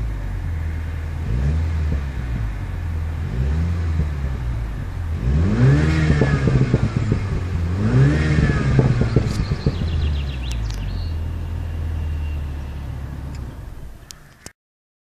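2015 Mini John Cooper Works' 2.0-litre turbocharged four-cylinder engine idling in Park and being revved, heard from inside the cabin. Two short blips come first, then two bigger revs, each climbing and falling back to idle. Near the end the sound fades and cuts off.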